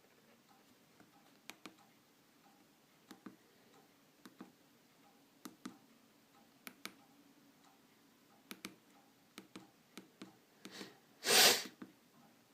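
Soft clicks, mostly in pairs a fraction of a second apart, coming every second or so, with one short loud rush of noise near the end.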